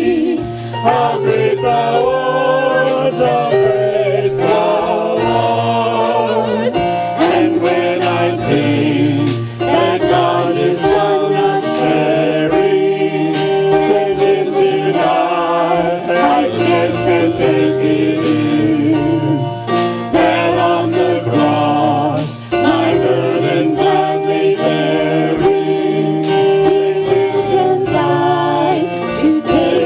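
Praise team singing a worship song with instrumental accompaniment and a steady beat.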